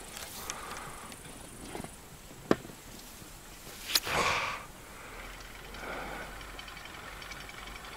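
A splash in the water about four seconds in, after two sharp knocks. A softer swish of water follows a couple of seconds later.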